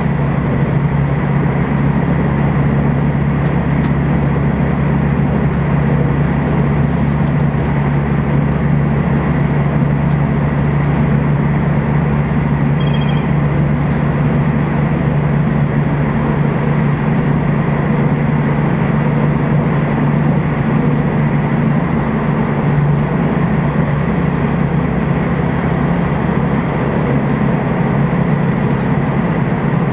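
Steady running noise heard inside the passenger car of a Taiwan Railways TEMU2000 Puyuma electric multiple unit at speed: a deep, even hum with a rushing noise over it.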